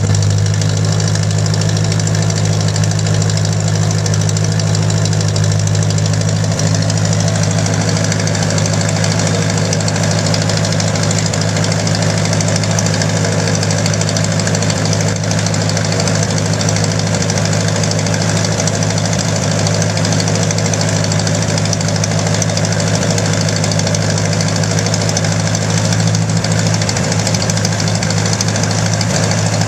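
An old tractor's engine running at a steady speed, unchanging throughout.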